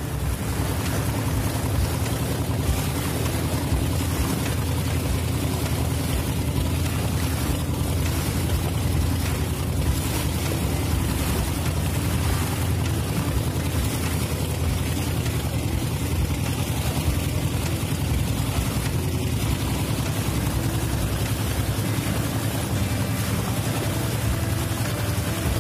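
Wooden motorboat's engine running steadily under way, with water rushing along the bow. A constant low hum over a wash of noise, unchanging throughout.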